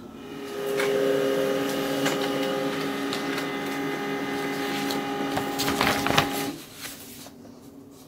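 HP LaserJet Pro M28w laser printer printing an ID copy. Its motors start about half a second in and run steadily, a hum of several tones with light clicks as the page feeds through and out, stopping about six and a half seconds in.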